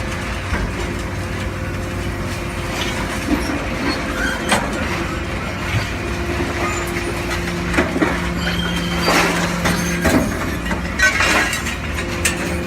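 Hydraulic scrap-metal shear running: a steady machine hum with held tones, broken by several sharp metallic clanks and screeches, most of them in the second half. A lower tone joins the hum a little past halfway.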